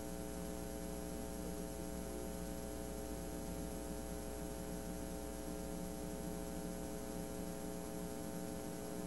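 Steady electrical mains hum with a low background hiss, a constant buzz with many even overtones that does not change.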